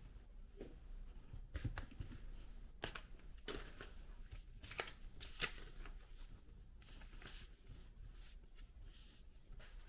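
Handling noise from a Mac mini and its packaging: scattered short rustles and scrapes with a few light clicks and knocks, coming irregularly.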